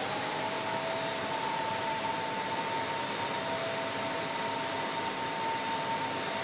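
Steady factory machinery noise: an even hiss with two faint steady tones held under it and no clear strikes.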